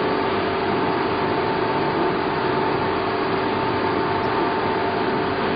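Straight knife blade grinder running: a steady machine hum with a few held whining tones.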